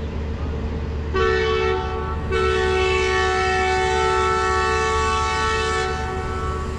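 Diesel locomotive's air horn heard from a coach down the train: a short blast about a second in, then a long blast of about four seconds sounding a two-note chord, over a steady low rumble.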